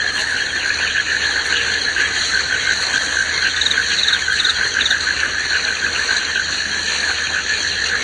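Tropical forest ambience: a dense, steady chorus of insects and frogs, pulsing trills layered at several pitches, with a few brief higher chirps around the middle.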